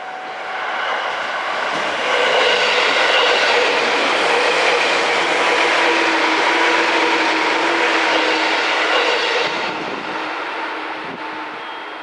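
JR 205 series electric commuter train passing close by, wheel and rail noise mixed with a few steady whining tones. It swells over the first two seconds, stays loud, then drops away sharply about ten seconds in as the last car clears.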